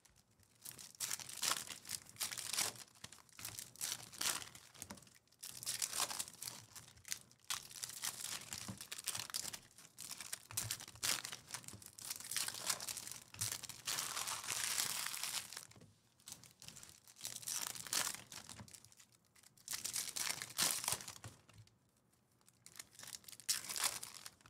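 Foil trading-card pack wrappers crinkling and tearing as Topps Chrome packs are ripped open by hand, in irregular bursts with short pauses.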